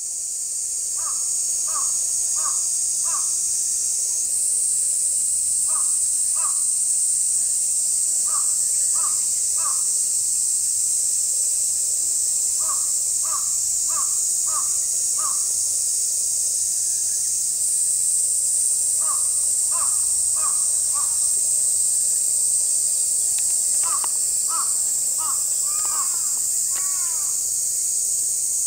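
Crows cawing in short runs of two to five calls, a run every few seconds, over a loud, steady, high-pitched insect drone.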